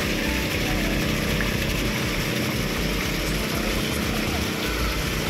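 Steady rushing and splashing of fountain water, over an uneven low rumble of wind buffeting the microphone.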